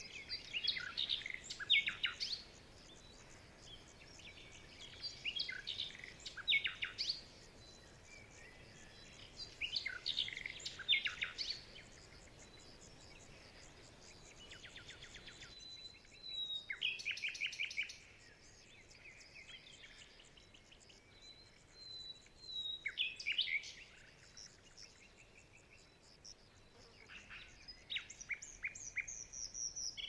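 Songbirds singing: short song phrases of rapid trills and quick falling notes, repeated every four seconds or so.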